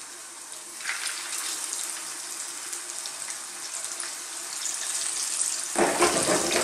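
Corn-flour-coated fish pieces sizzling in hot vegetable oil as more pieces are laid into the pan. The sizzle starts up about a second in and grows louder near the end.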